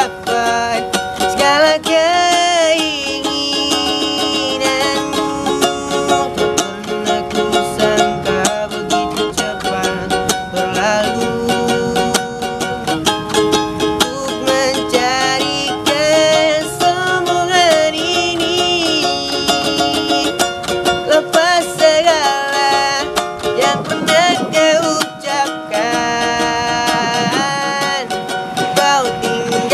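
A young man singing an Indonesian pop ballad while strumming a small ukulele, his voice wavering on the held notes.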